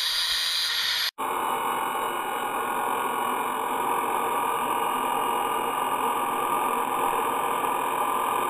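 Grinding wheel running with a steel bolt pressed against it for a spark test: a steady grinding hiss, cut off for an instant about a second in and then continuing.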